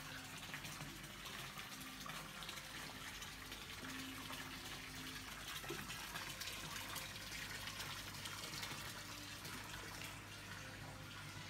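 Water pouring from a spout into a swimming pool, a steady splashing stream that is a little louder in the middle.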